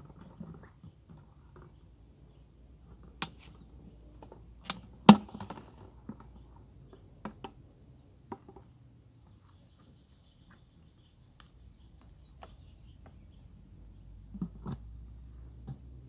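Insects chirping steadily in a high, even trill, with scattered sharp clicks and knocks, the loudest about five seconds in.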